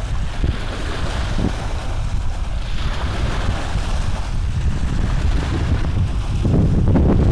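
Steady low rumbling noise on the microphone, growing louder near the end.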